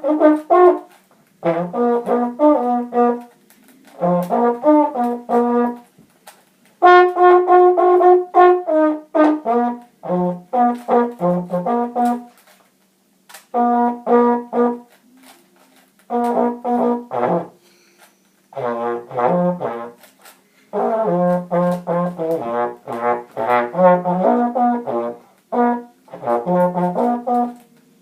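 Trombone blown hands-free, so the slide is not worked. It plays short phrases of choppy notes jumping between a few pitches, separated by pauses of a second or so.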